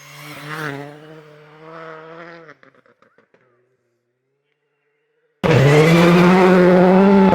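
Race car engines on a snow course: one engine running and fading away over the first two and a half seconds, then a near-silent gap, then another engine cuts in abruptly, loud and held at high revs.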